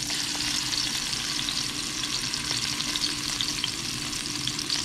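Blackfin tuna loin searing in hot oil in a nonstick frying pan: a steady sizzle with many small crackling pops, as the fish is rolled onto a fresh side to sear.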